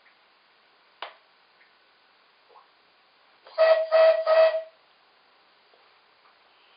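DJB resonator whistle on a model NGG16 Garratt locomotive, blown on compressed air instead of steam: three short toots in quick succession, all on one steady pitch, about three and a half seconds in. A single sharp click comes about a second in.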